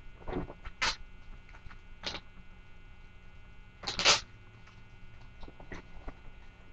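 Steady electrical mains hum, with a few short rustling noises, the loudest about four seconds in.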